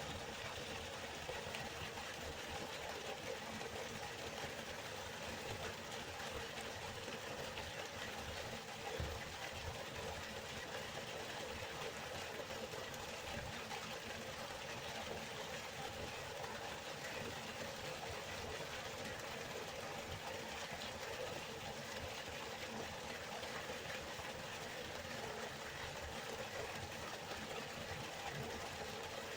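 River water flowing steadily, an even rushing noise with no change.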